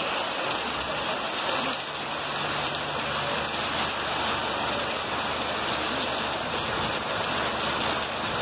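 Muddy floodwater rushing down a street in a fast torrent, with heavy rain falling: a steady, even rushing noise.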